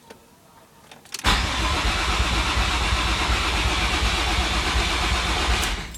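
Car engine cranking on its starter motor for about four and a half seconds after a click, then cutting off suddenly, in what is set out as a no-start.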